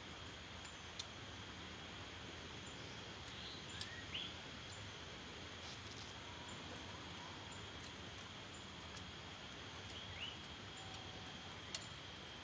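Quiet outdoor ambience: a steady hiss with a constant high-pitched insect drone, two short rising bird chirps about four seconds in and again near ten seconds, and a few faint clicks.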